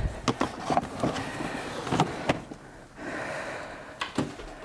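Objects being handled and set down: a quick series of light knocks and clatters, then a short sliding scrape about three seconds in and one more knock near the end.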